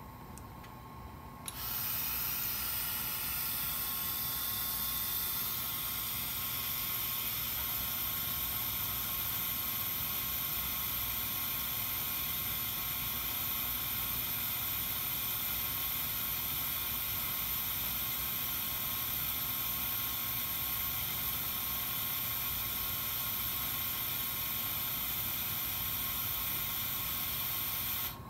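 Finetech Fineplacer Core BGA rework station's air system running: a steady hiss with a high whine. It switches on about a second and a half in and cuts off suddenly just before the end.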